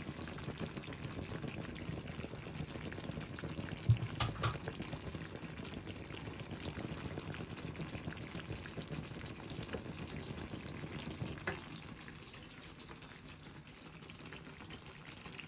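Beef and onion slices simmering in their sauce in a pan, a steady bubbling sizzle with fine crackles. A sharp knock comes about four seconds in and a click near the end, after which the sizzle is quieter.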